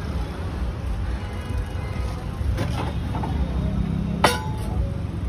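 Steady low rumble of road traffic, with a single sharp metallic clink about four seconds in.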